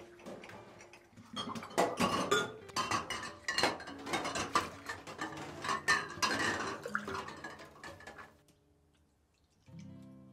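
Glass cups and mugs clinking against each other and against a stainless steel sink as they are set down in it, in a quick run of clinks that stops about two seconds before the end.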